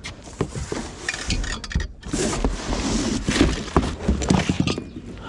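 Cardboard rustling and scraping, with a few sharp knocks and clinks, as a heavy refrigeration scroll compressor is hauled out of its box and set down on concrete.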